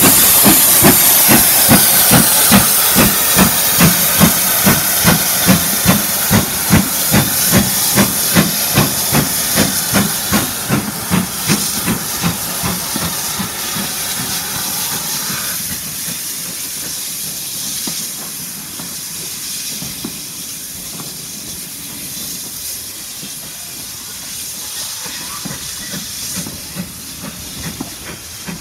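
Steam locomotive pulling away, its exhaust chuffing about twice a second over a loud hiss of steam at the start. The chuffs fade out about halfway through, leaving a quieter steady rumble.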